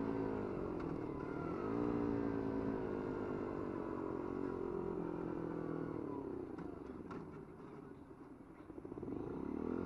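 50cc Dax motorcycle's small single-cylinder engine running under way: it picks up revs about a second in, holds a steady note, then eases off and goes quieter around eight seconds before revving up again near the end, with low wind rumble underneath.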